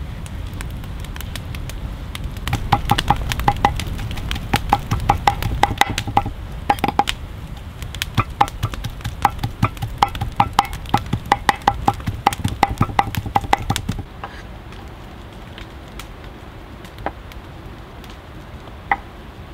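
Knife blade mincing raw goose meat on a wooden cutting board: rapid repeated chopping strokes, several a second, that stop abruptly about two-thirds of the way through, leaving a quieter background with a couple of single sharp clicks.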